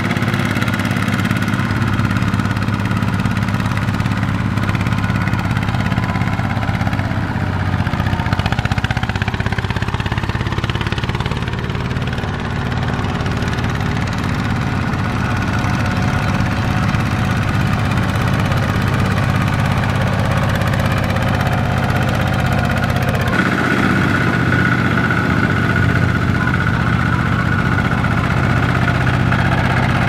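Single-cylinder diesel engine of a two-wheel walking tractor running steadily under load as it hauls a loaded trailer through mud. The engine note changes abruptly about 23 seconds in.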